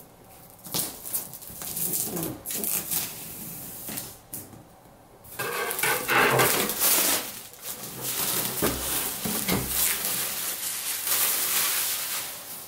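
A blade scraping and slicing through the shrink-wrap film on a cardboard kit box, then, from about five seconds in, the plastic wrap being peeled off and crumpled, a loud continuous crinkling.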